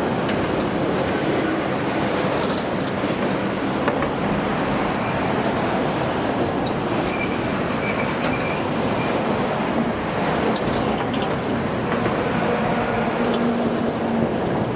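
Coal freight train rolling on the rails: a steady rush of wheel-on-rail noise with a few sharp clicks over the rail joints.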